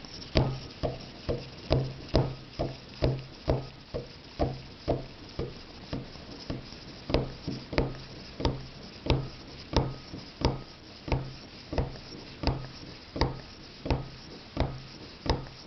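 Mountain-bike suspension fork pump being worked by hand to pressurize an air rifle's gas ram: steady repeated strokes, about one and a half a second, each starting with a sharp click.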